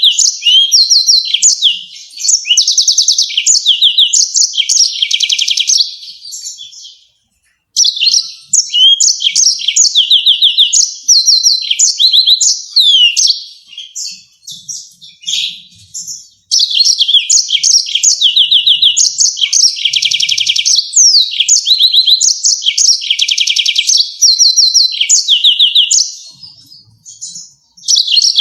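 Yellow-fronted canary singing long runs of fast, high trills and sharp repeated chirps. It breaks off briefly about six seconds in and again about fourteen seconds in.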